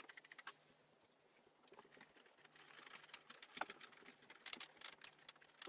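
Faint handling noise from assembling a particleboard bookcase: scattered small clicks and taps, sparse at first and more frequent from about halfway, over a faint low hum.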